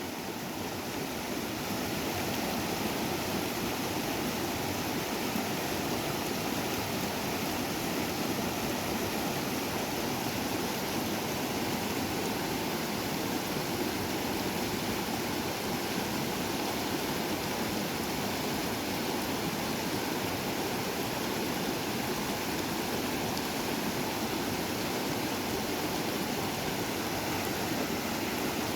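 A small river's water rushing steadily, an even noise with no pauses.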